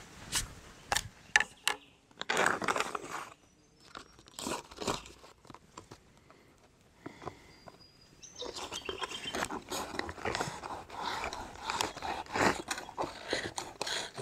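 A knife cutting through a crinkly foil-lined freeze-dried meal pouch, the packet crackling and crunching, densest from about 8 seconds in. Sharp clicks and rustles in the first couple of seconds as the knife is handled.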